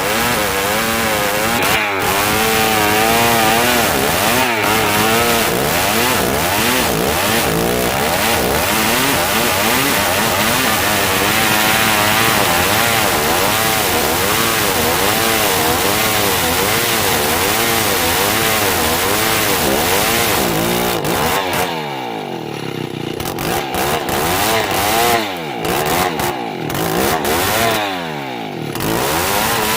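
Old two-stroke chainsaw running at high revs through dry merbau hardwood, its engine pitch wavering up and down under the load of the cut. About two-thirds of the way in, the throttle is let off three times: each time the engine drops toward idle and revs back up.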